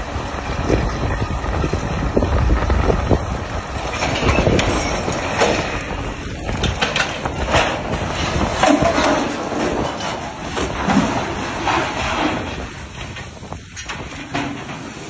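Truck-mounted mobile crane overturning off a pier while lifting a wooden fishing boat: a low rumble at first, then from about four seconds in a long run of creaking, banging and crashing as the crane tips and the boat and crane fall into the water with splashes, dying down near the end.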